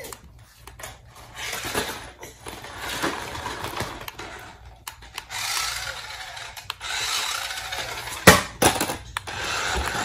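Plastic toys rubbing and scraping on a vinyl floor in short stretches, with two sharp knocks a little past eight seconds in.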